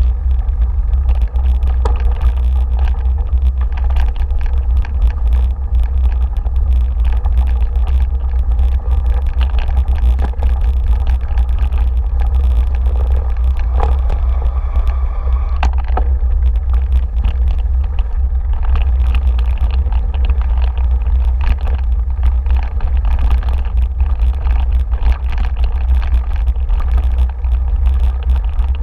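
Wind buffeting the microphone of a camera carried on a bike ride down a bumpy dirt trail, giving a steady deep rumble. Frequent small rattles and knocks come through from the rough ground.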